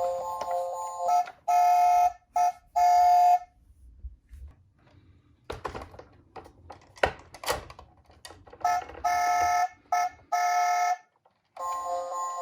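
Electronic toy siren tones from minicar police cars and ambulances: two loud held tones of about a second each near the start and three more later. In between come scattered clicks and knocks of the small toy cars rolling and bumping down a slope.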